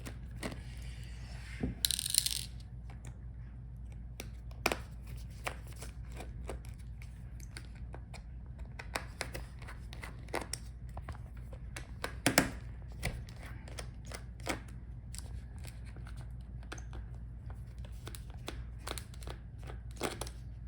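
Scattered small clicks and taps of a screwdriver and tiny screws being worked out of a laptop's internal battery mount, with a short rasping scrape about two seconds in, over a low steady hum.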